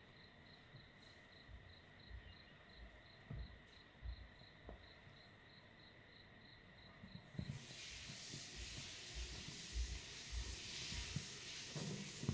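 Faint soft thumps and scuffles of kittens play-fighting on a blanket. In the first half they sit over a regular high chirping about three times a second; from about halfway a steady hiss takes over.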